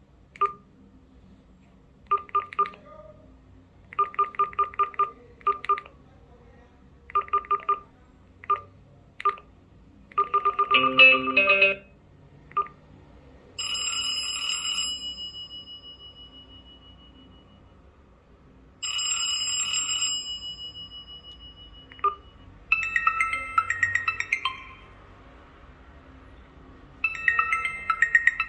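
Sonim XP3 rugged flip phone playing ringtone previews through its speaker, preceded by a run of short key beeps, some in quick bursts, as the ringtone list is stepped through. The previews include a dense tune, two bell-like rings that fade away, and two short melodic tunes, each cut off after a second or two.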